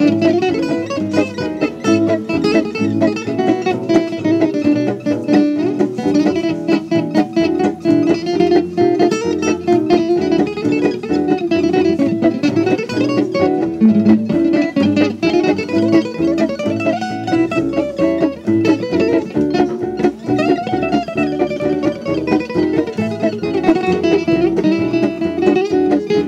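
Guitar music, plucked strings playing a steady stream of notes without a break.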